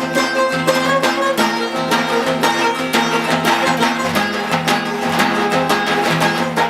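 Background music led by fast plucked strings, with a Middle Eastern folk character.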